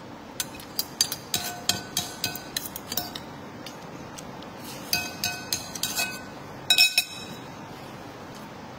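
Metal spoon clinking and scraping against a ceramic plate while eating, in three quick runs of light taps with a short ring, the last two taps the loudest.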